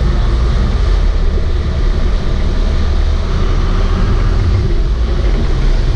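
Sport-fishing boat's engines running loud and steady, with the wash of churning wake water.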